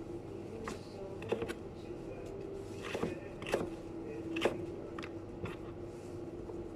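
Scattered light clicks and taps of kitchen work, about eight in all, over a steady low hum.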